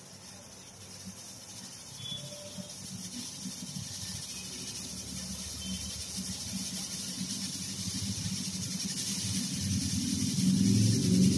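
Pressure cooker on a gas burner at full flame, building pressure before its first whistle: a low rumble under a hiss that grows steadily louder, strongest near the end.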